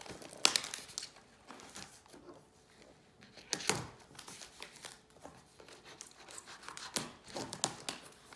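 A cardboard mailing box being torn open by hand: cardboard and tape ripping, flaps pulled back and paper crinkling in irregular rustles. A sharp rip about half a second in is the loudest.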